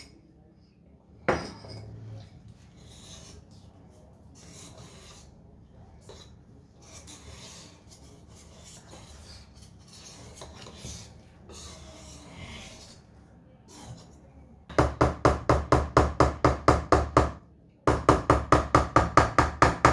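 Hand balloon whisk stirring thick cake batter in a stainless-steel bowl: soft, slow scraping and sloshing strokes. Later come two runs of rapid, even metallic clicks, about seven a second, as the whisk's wires knock against the ringing steel bowl.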